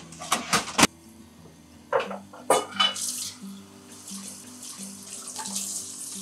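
A metal ladle and food pieces knocking and splashing in a saucepan of broth: several sharp clinks in the first second and again around two to three seconds in, then a steady swishing of liquid as the ladle works the broth. Soft background music plays under it.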